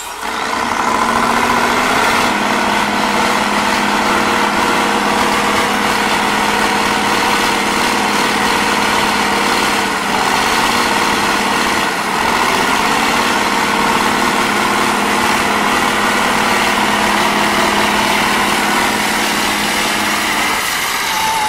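Four-axle off-road trial truck's diesel engine running steadily under load as the truck crawls over rocky ground. The engine comes in sharply at the start, its pitch dips and recovers a little about halfway through, and the steady engine note stops near the end.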